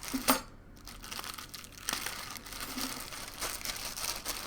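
Plastic packaging crinkling and rustling as it is handled and pulled open, with a few small crackles.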